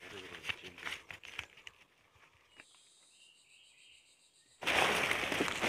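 Rustling and handling noises, then a quiet stretch with a few faint high chirps. Near the end a sudden, louder burst of dense rustling begins.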